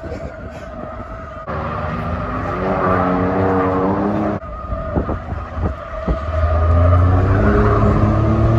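Ford pickup truck drifting: the engine revs up in long climbs while the tires skid on pavement. The sound jumps abruptly twice, about one and a half and four and a half seconds in.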